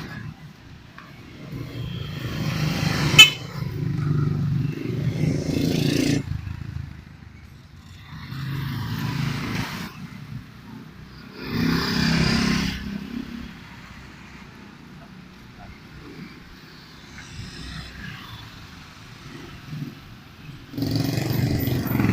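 Road traffic: several vehicles passing one after another, each swelling and fading over a few seconds, with a sharp click about three seconds in.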